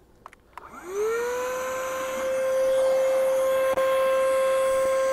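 Electric air pump switched on in deflate mode, pulling the air out of an inflatable boat: a couple of clicks, then the motor whine rises as it spins up about a second in and settles into a steady hum.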